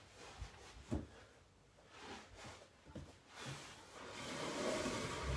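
A few soft thumps as a person shifts and kneels on a carpeted floor, then a wooden table being pushed across the carpet, a rubbing scrape that builds from about three and a half seconds in.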